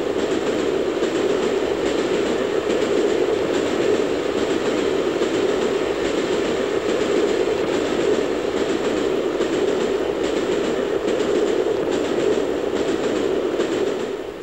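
LMS steam locomotive running along the line, heard from the footplate: a steady, even running noise that falls away just before the end.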